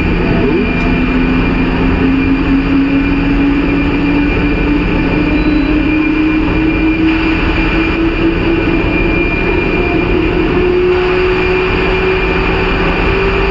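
WAP-7 electric locomotive running light, heard from inside the cab as it gathers speed: a steady rumble of wheels on rail under a traction motor whine that rises slowly in pitch throughout.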